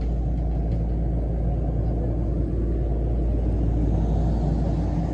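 Heavy diesel engine running steadily with a low rumble.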